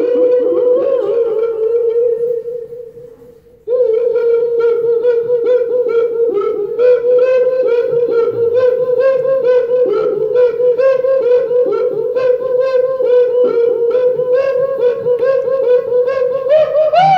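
A young child singing in a mock-opera style into a microphone: one high note held on a string of repeated syllables, with a short pause for breath about three seconds in. It rises in pitch at the very end.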